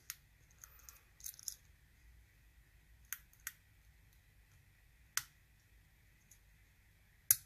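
Pin-tumbler practice lock (Sparrows Revolver) being picked with a hook pick: a handful of sharp, irregularly spaced metallic clicks as the pick works the pins and they set, the loudest just before the end.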